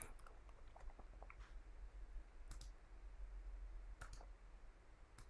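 Computer mouse clicking a few times, about a second apart, as pieces are moved in shogi board software, over a faint low hum.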